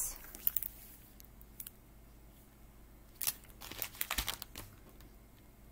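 Rustling and crinkling of a diamond painting canvas as hands press and slide over it. The noise comes in short bursts, most of them about three to four and a half seconds in.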